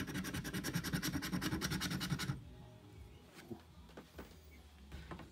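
A coin scraping the silver coating off a lottery scratch-off ticket in rapid, even back-and-forth strokes, several a second. It stops abruptly a little over two seconds in, leaving only a few faint knocks.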